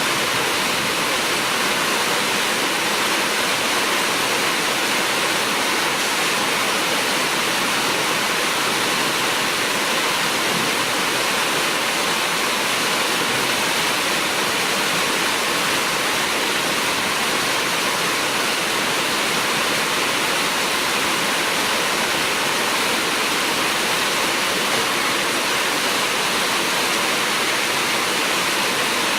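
Heavy rain falling, a steady, unbroken hiss of water at an even level.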